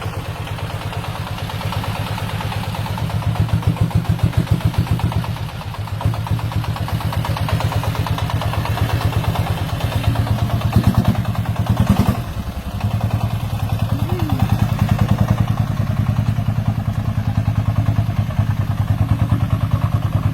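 Diesel engine of a homemade farm transport vehicle running, its firing pulses fast and even, growing louder for a stretch a few seconds in. A short clatter sounds just past halfway.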